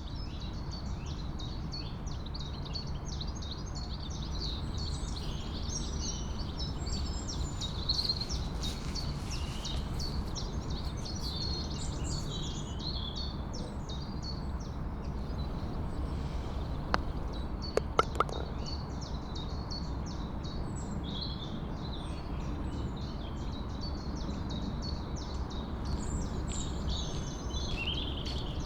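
Outdoor ambience: small birds chirping and singing over a steady low rumble, with three sharp clicks about two-thirds of the way through.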